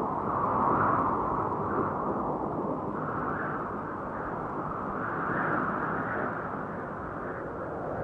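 DJI Phantom 1 quadcopter's motors and propellers, a muffled steady whir that swells and eases a little as it flies.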